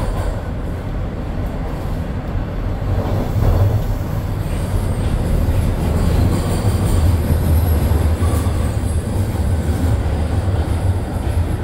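Toronto TTC Line 1 subway train running between stations, heard from inside the car: a steady low rumble of wheels on track that grows louder about four seconds in. A faint high wheel squeal sits above it from about halfway.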